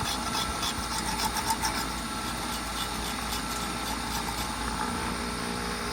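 Pocket knife scraping built-up crud off a steel lawn mower blade in quick short strokes for the first couple of seconds, over a steady machine hum.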